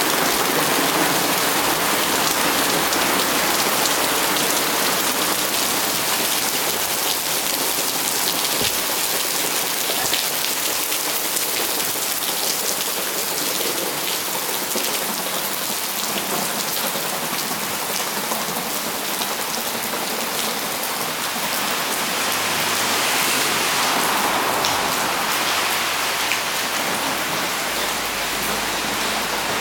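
Heavy rain pouring down: a steady, dense hiss with many fine drop ticks.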